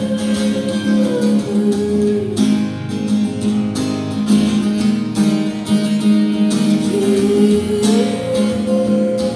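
Instrumental break in an indie song: acoustic guitar strumming steadily, with a sustained lead note that slides down about a second in and slides back up near the end.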